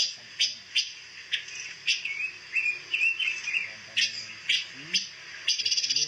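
Caged pancawarna songbird calling: sharp chirps repeated about twice a second, with a short warbling phrase in the middle and a quick rattle of notes near the end.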